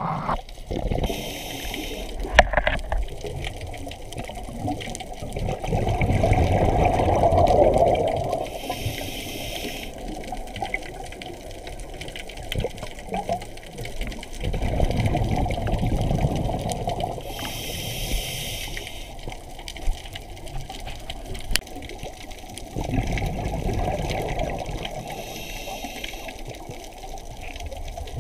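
Scuba diver breathing through a regulator underwater: a short hiss on each inhale, then a longer rush of exhaled bubbles, repeating about every eight seconds.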